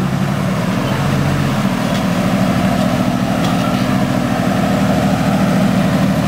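Toyota 4x4 truck's engine running at low revs as it crawls over rocks. The pitch steps up a little about a second and a half in, then holds steady.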